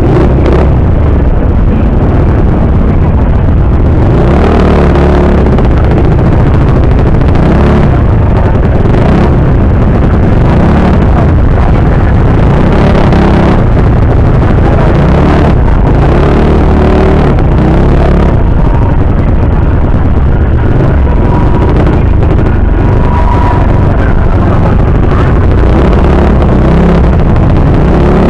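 Yamaha Mio Sporty scooter's single-cylinder four-stroke engine, fitted with a 28mm Keihin carburettor, running at low speed in traffic, its note swelling and dropping back every few seconds as the throttle is worked. The carburettor still needs tuning.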